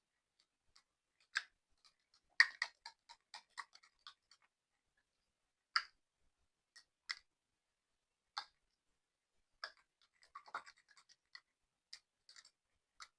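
Slime being worked by hand, giving off irregular sticky clicks and small pops with silence between them, a quick run of them about two and a half to four seconds in.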